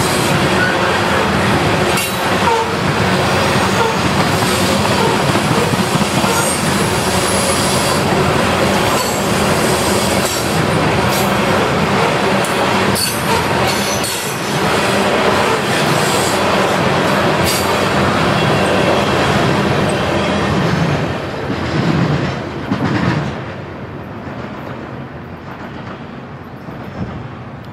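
A string of covered hopper freight cars rolling past on the rails: steady wheel rumble with clacks and some high wheel squeal. About 23 seconds in the end of the train goes by and the sound falls away.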